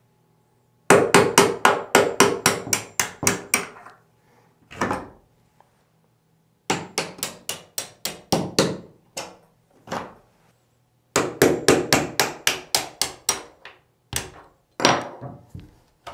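Claw hammer striking a nail set to drive hinge pins up out of a door's hinges. It comes as three quick runs of sharp taps, about four a second, with a few single blows between.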